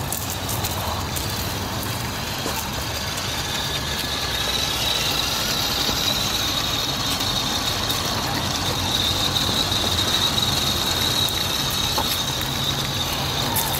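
Traxxas TRX-4 Sport electric RC crawler driving over dirt: a steady high whine from its motor and drivetrain with the rustle of its tyres on the ground, louder in the middle as it passes close.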